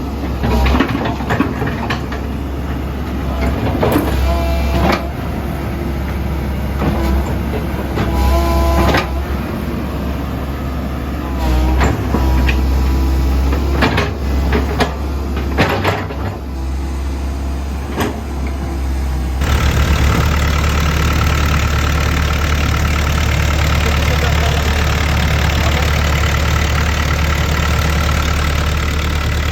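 Komatsu PC138US-8 excavator's diesel engine running, with clanks, knocks and short squeaks over the first two-thirds. About two-thirds of the way in, the sound turns steadier and fuller, with a steady high whine.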